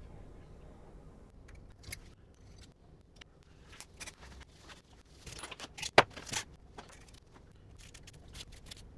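Metal brake caliper parts and tools being handled on a workbench: scattered light clicks and clinks, with one sharp click about six seconds in.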